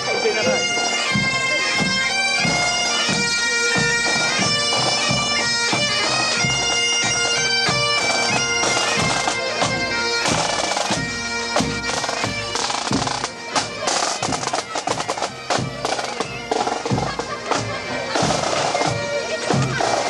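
A marching pipe band playing: bagpipes sound a melody over their steady drone while drums beat time. About halfway through, the drumming grows busier.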